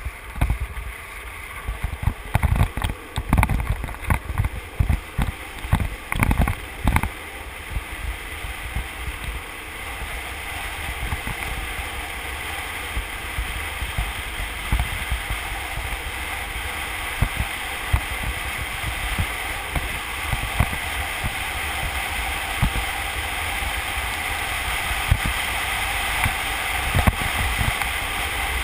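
Wind rushing over a helmet-mounted camera and street luge wheels rolling on asphalt during a fast descent, with many low buffeting thumps on the microphone over the first seven seconds or so, then an even rush that grows gradually louder.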